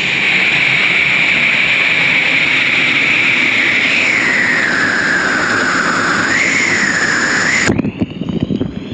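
Waterfall pouring close by: a loud, steady roar like white noise, with a hissing band that slowly slides down in pitch and wavers back up. It drops off suddenly near the end to a quieter, thinner rush of water.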